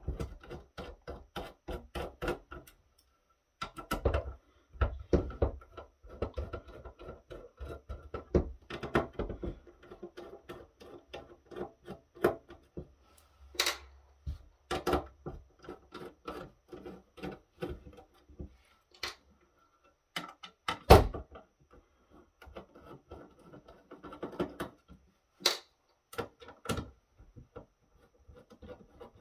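Screwdriver turning out the small screws that hold a circuit board in a thin metal chassis. Many irregular clicks, ticks and knocks come from the driver, the screws and the case being handled, with one louder knock about two-thirds of the way through.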